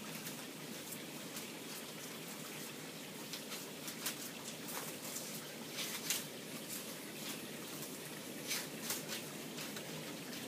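Coconut palm leaflets rustling and crackling as they are folded and woven by hand: irregular crisp crackles over a steady hiss.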